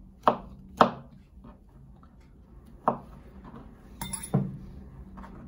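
Kitchen knife chopping a mushroom stalk on a chopping board: three sharp knocks in the first three seconds. About four seconds in comes a clatter with a ringing chink as the knife knocks against the bowl while the pieces are pushed in.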